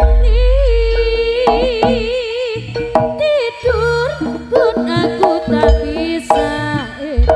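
Live Javanese jaranan music: a high lead melody with wide, wavering vibrato over drumming and a deep low boom near the start.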